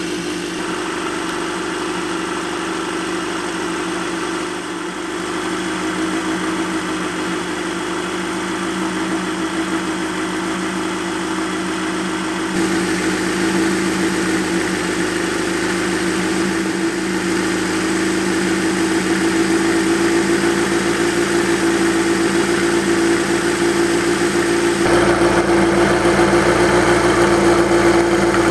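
Kawasaki Z1's air-cooled inline-four idling steadily through a PAMS four-into-one collector exhaust. The tone changes abruptly twice along the way and grows a little louder toward the end.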